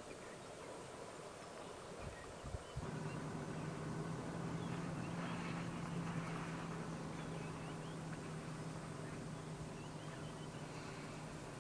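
A vehicle engine idling steadily, starting about three seconds in, with birds chirping faintly.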